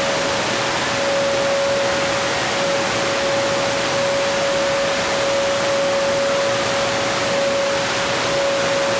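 Shortwave static hiss from a Tecsun PL-310ET receiver tuned to 7585 kHz, with a steady whistle tone near 570 Hz over it that drops out briefly now and then. No programme speech comes through: weak, noisy reception, the whistle typical of a heterodyne from a nearby carrier.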